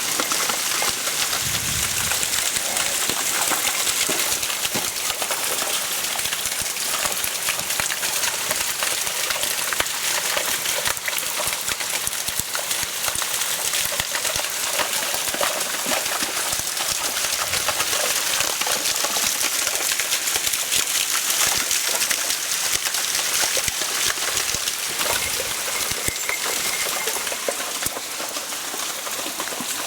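Waterfall: steady rushing and splashing of falling water on rock.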